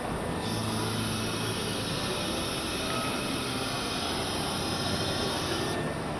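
CNC router with a 9 kW HSD spindle running. A steady machine noise carries a low hum, and a high hiss sets in about half a second in and drops away shortly before the end.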